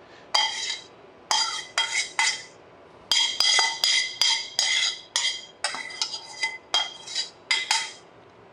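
Metal tongs clanking and scraping against a stainless steel pan as pasta is scraped out of it, a quick, uneven run of clinks with the pan ringing briefly after each.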